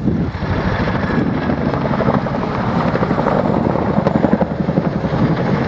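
RAF Chinook tandem-rotor helicopter flying a display pass overhead, its twin rotors giving a loud, steady rapid chop over the turbine noise.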